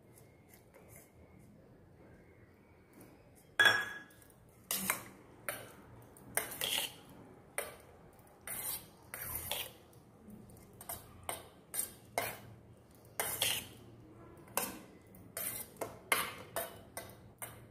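Steel spoon clinking and scraping against a stainless-steel bowl while wet, coloured papaya pieces are stirred. After a few quiet seconds come irregular clinks, about one or two a second, the first one the loudest.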